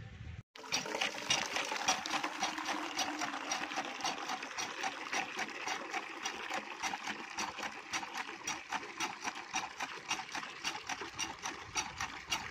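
Hand pump being worked by its handle, water gushing from its spout and splashing onto the ground in a steady stream with rapid, regular pulses. It starts about half a second in.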